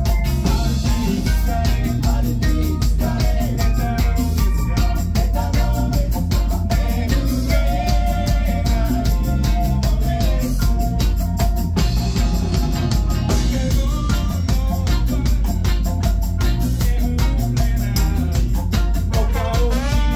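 Live ska band playing: drum kit with a steady beat, electric guitar and keyboard, with trumpet and trombone coming in on held notes near the end.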